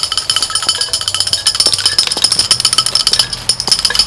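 A dense chorus of forest insects buzzing, a steady high-pitched drone broken into very rapid, even pulses.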